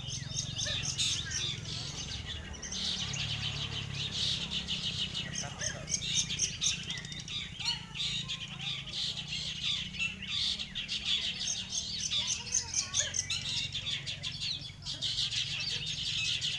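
Many long-tailed shrikes (cendet) and other songbirds chirping and chattering at once in a dense, unbroken chorus, the kind of din heard at a bird-singing contest, over a low steady hum.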